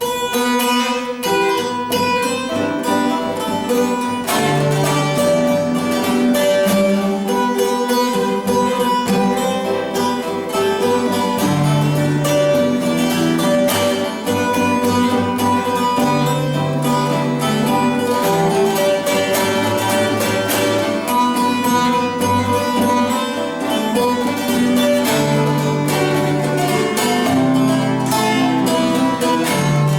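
Bağlama and acoustic guitar playing a Turkish folk tune together: quick plucked notes over sustained low bass notes.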